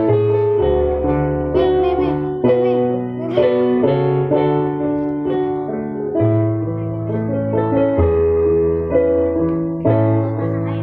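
Electric keyboard accompaniment for a choir, playing sustained chords over a bass line, the chords changing every second or two: the instrumental introduction before the singing begins.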